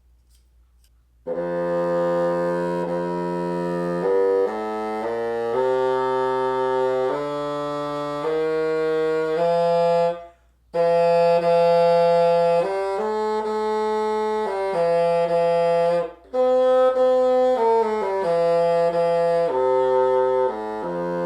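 Bassoon played in three phrases of changing sustained notes, with short breaks for breath about ten and sixteen seconds in, to test a flat reed whose blade corners have just been narrowed with sandpaper. The tone is a little brighter and the reed a little easier to play, a sign the fix is raising the pitch.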